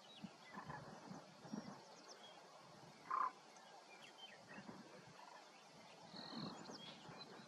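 Faint scattered bird chirps and short whistled calls. The loudest is a brief, lower call about three seconds in, and a short steady whistle comes about six seconds in.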